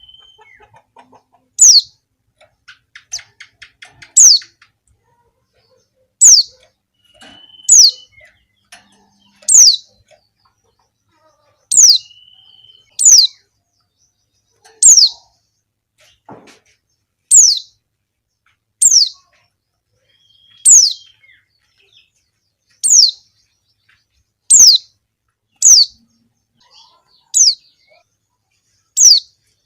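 Female white-eye (pleci) calling: short, sharp, high notes that drop in pitch, repeated about every one and a half to two seconds, with a few softer chirps and a brief faint trill in between.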